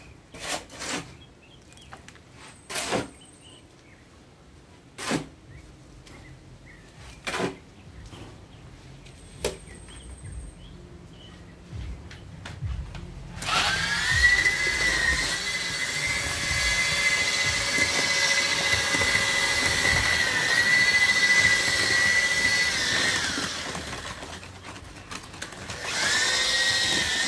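Electric drill with a paddle mixer stirring a mix in a bucket. The motor whines steadily from about halfway through, dips in pitch a little under load, eases off near the end and starts up again. Before it come a few scattered sharp knocks.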